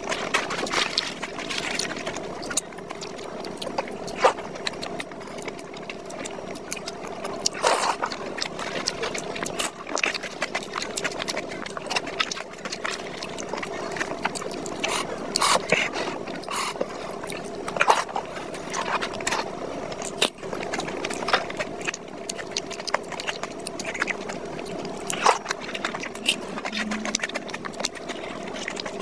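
Close-miked eating sounds: chewing, wet mouth smacks and the squelch of fingers tearing soft luchi and dipping it into mutton curry, as many short irregular clicks and smacks over a steady low hiss.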